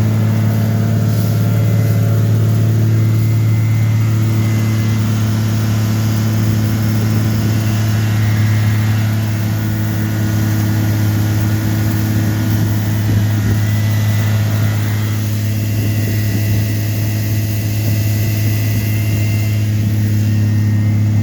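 Jeep Cherokee engine idling with a steady, even hum that holds one pitch.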